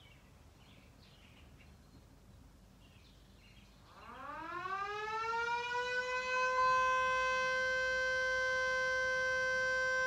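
Vixen Horns siren winding up from silence about four seconds in, its pitch rising for a couple of seconds before it settles into a loud, steady wail. Faint birdsong is heard before it starts.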